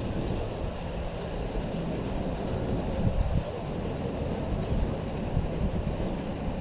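Wind buffeting the microphone outdoors on open water: a steady rushing noise, heaviest in the bass.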